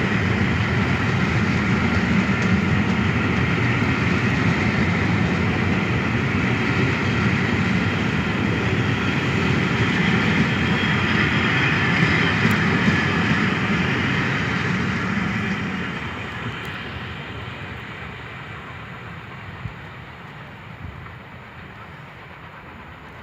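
Passenger train hauled by the A1 Pacific steam locomotive 60163 Tornado rolling past on the rails as it pulls out of the station, a steady rumble that fades away from about sixteen seconds in as the train draws off.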